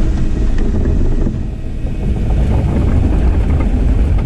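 Diesel engine of a JCB earthmoving machine running, a steady deep rumble that dips slightly about a second and a half in.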